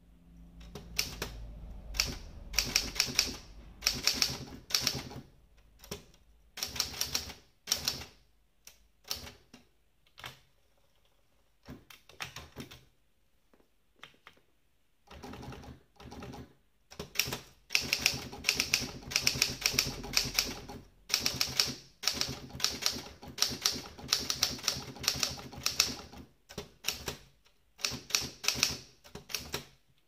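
Wide-carriage Olympia SG1 manual typewriter being typed on: quick runs of clacking keystrokes in bursts with short pauses, sparse near the middle and a steady stream of typing over the second half.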